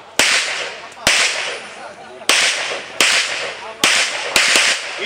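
Handgun fired six times in just over four seconds, at an uneven pace, each shot sharp with a short echo.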